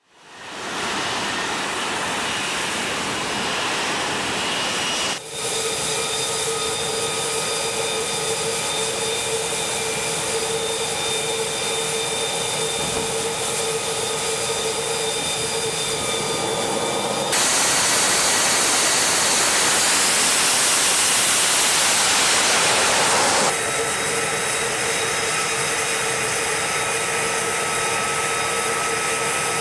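F-35B's F135 jet engine running, a steady roar laced with several high whining tones. About five seconds in, and again near the middle, the sound jumps abruptly; from about 17 to 23 seconds it is louder and more hissing.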